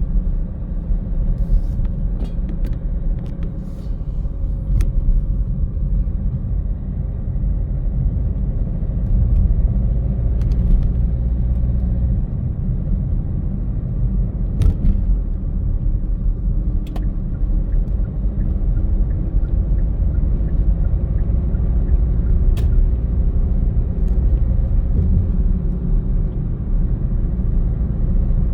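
Car driving at steady speed: a constant low rumble of engine and road noise, with a few faint ticks scattered through it.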